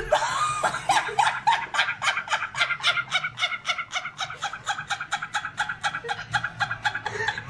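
A woman laughing in a long run of rapid, even, high-pitched pulses, about five a second, going on without a pause for breath.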